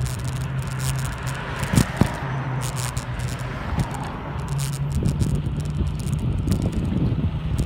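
Bicycle rolling over pavement, with steady wind rumble on the microphone and many short clicks and rattles from the bike jolting over the surface.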